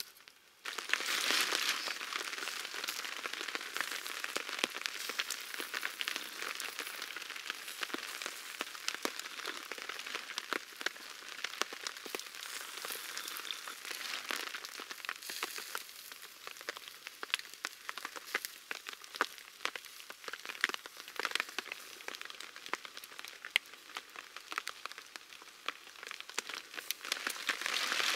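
Rain pattering steadily on a tarp overhead, thick with small sharp drop ticks. It starts abruptly about a second in.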